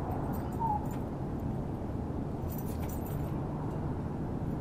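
A raven gives one short, clear note that falls slightly, about half a second in, over a steady low background rumble. A few faint clicks follow near the middle.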